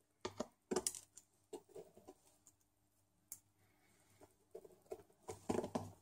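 Faint, scattered clicks, taps and scrapes of hands and a small screwdriver working on the plastic memory cover on the underside of a Panasonic Toughbook CF-18 laptop, with a denser run of clicks near the end.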